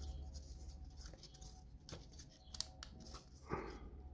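Faint, scattered clicks and scrapes of thin laser-cut plywood model pieces being handled and pressed together by hand.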